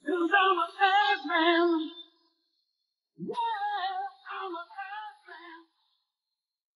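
Unaccompanied singing voice, the isolated vocal of a rock entrance song, in two short phrases; the second starts about three seconds in.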